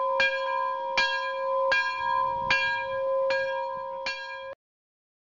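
A single bell struck at a slow, even pace, about one stroke every 0.8 seconds, each stroke ringing on into the next, like a toll. It cuts off suddenly about four and a half seconds in.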